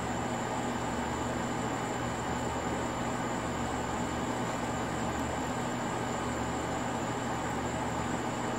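Steady background noise with a constant low hum and a steady high-pitched whine, unchanging throughout, with no distinct sounds standing out.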